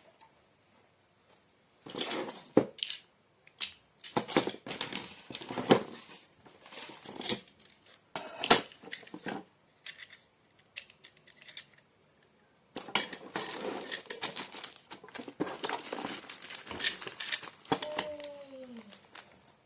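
Irregular metallic clinking and clattering in bursts, like hard metal parts being handled and knocked together, with pauses between the bursts.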